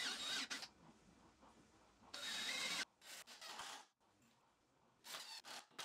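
Drill bit boring into a pine 2x4, heard as a few short scraping bursts of the bit cutting wood, with near silence between them.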